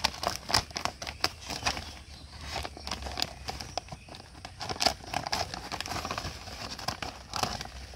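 Scissors snipping through an empty woven plastic cement sack, a run of irregular sharp cutting clicks with the stiff sack crinkling as it is turned and cut around.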